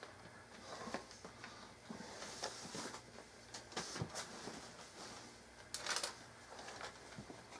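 Faint handling noise: scattered light clicks and taps with brief rustles, over a low steady hum.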